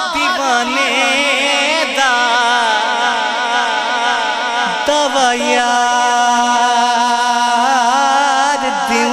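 A man singing a naat into a microphone, drawing out long held notes with wavering, ornamented turns of pitch.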